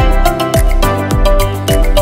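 Background music with a steady beat: a deep bass drum about twice a second, sharp high percussion and a melody of held notes over it.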